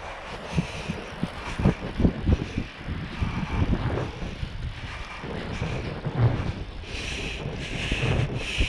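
Camera handling noise from a camera held in the teeth: irregular low knocks and rubs, over wind buffeting the microphone. Near the end the rushing grows into a pulsing hiss.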